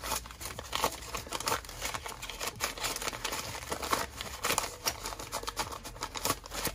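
Paper banknotes, a wad of one- and two-dollar bills, rustling and crinkling as they are flipped through by hand: a quick, irregular run of crisp flicks.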